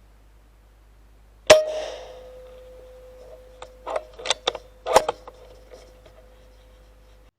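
An air rifle shot with a sharp metallic clang about a second and a half in, ringing on as a steady tone. A quick run of sharp clicks follows about two seconds later, and the ringing stops abruptly near the end.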